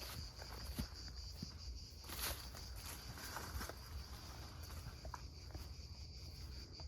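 Insects trilling steadily at a high pitch, with scattered footsteps on the forest floor; the loudest steps fall about a second and two seconds in.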